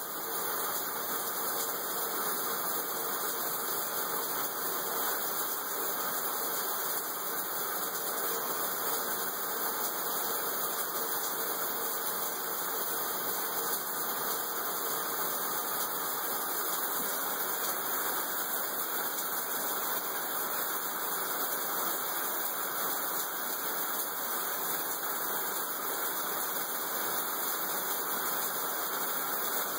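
A steady, even hiss with no distinct knocks, clicks or voices in it.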